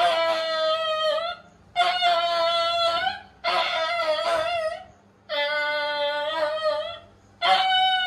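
A dog with a broken leg howling in pain as the leg is bound in plaster: about five long, high cries, each over a second, with short breaks between them, each sliding down a little in pitch at its end.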